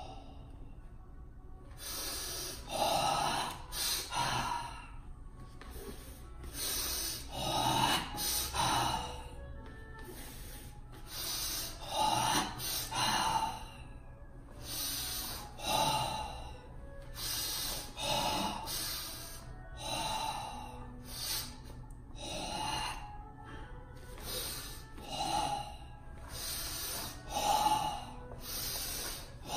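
Forceful, audible breathing of Sanchin kata: loud, hissing breaths drawn in and pushed out with tensed body, recurring about every two seconds.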